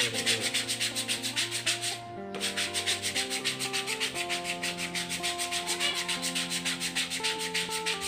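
Sandpaper rubbed by hand over a carved pelantang-wood whistling-duck decoy, in quick back-and-forth strokes about five a second. The strokes pause briefly about two seconds in.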